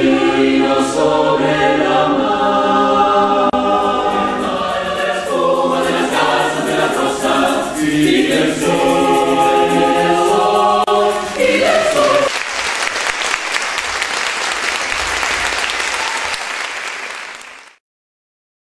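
Mixed choir of men's and women's voices singing. About two-thirds of the way in, the singing gives way to audience applause, which fades out shortly before the end.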